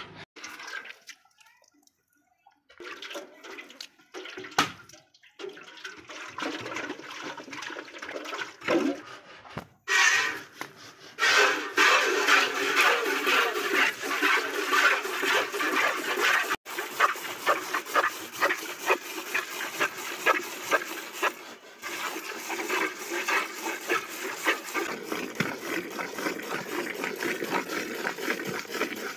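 Milk squirting from a cow's teats into a steel bucket during hand milking: a rapid, rhythmic hissing splash, one squirt per squeeze. It is faint and patchy at first and grows louder about ten seconds in.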